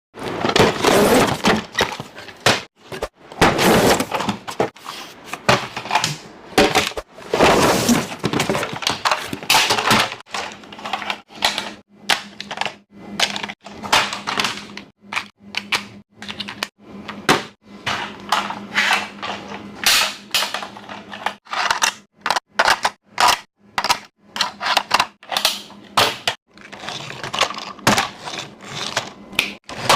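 Plastic toy trucks and their packaging being handled: irregular clicks, knocks and clatter of hard plastic, with rustling of packaging in the first several seconds.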